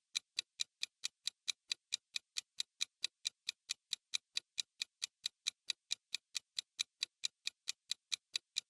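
Countdown timer sound effect: a clock ticking in quick, even ticks, about six a second, marking the answer time.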